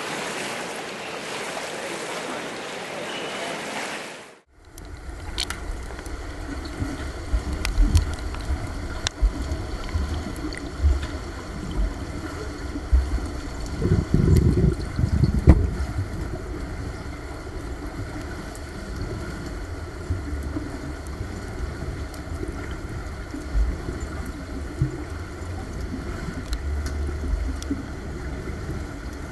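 Water splashing from a swimmer doing breaststroke for about four seconds, then, after a sudden cut, underwater sound: a low, muffled rumble with scattered clicks and a few faint steady hums, swelling louder near the middle.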